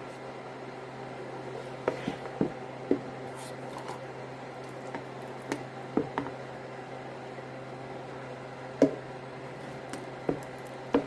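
Ricotta cheese being scooped into a large container: soft wet squishes with a few light knocks and clicks of the utensil against the container, spread through, over a steady low hum.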